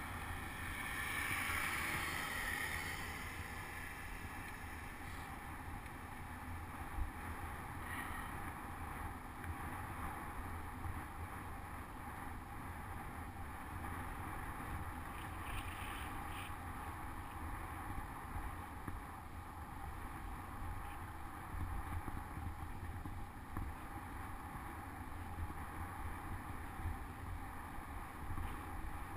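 Wind buffeting the microphone of a bicycle-mounted GoPro camera while riding, a steady low rumble with rushing noise above it. The noise swells louder in the first two or three seconds.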